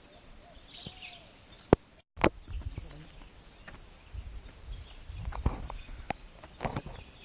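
Outdoor forest ambience with faint bird chirps, and scattered knocks and low thumps of handling and footsteps. A sharp click comes just before two seconds, followed by a split second of dead silence.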